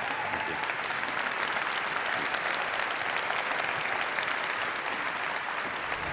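A large audience applauding steadily, a dense, even clatter of many hands clapping.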